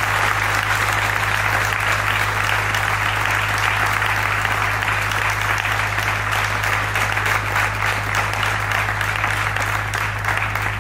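Audience clapping in one long, steady round of applause that thins a little near the end.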